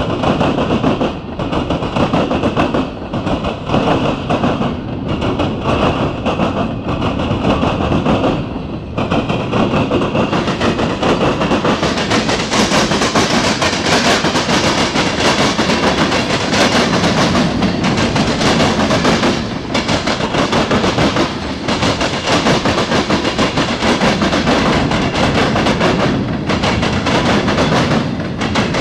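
A passing freight train's cars, gondolas then tank cars and covered hoppers, rolling by close at track speed: a steady rumble and rattle with repeated wheel knocks. It gets louder and harsher about twelve seconds in.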